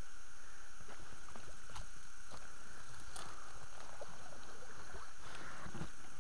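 Inflatable rubber boat being rowed and pushed through thick bog vegetation: irregular knocks and splashes of the oars, with grass and weeds scraping along the hull, over a steady hiss.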